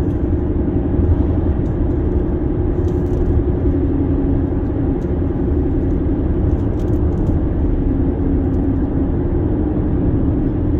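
Steady road and engine noise of a car driving at highway speed, heard inside the cabin.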